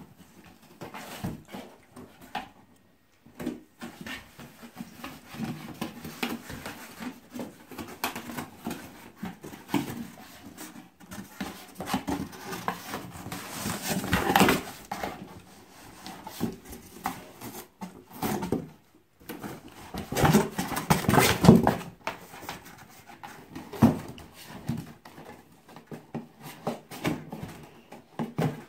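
A labradoodle puppy chewing, pawing and tearing at a cardboard box: irregular cardboard scraping, rustling and knocking. Louder stretches come about halfway through and again about three-quarters of the way through.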